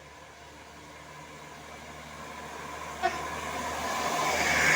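A large bus approaching up a hill, its noise growing steadily louder, with steady horn tones from a Basuri 'telolet' musical bus horn. A short sharp sound comes about three seconds in.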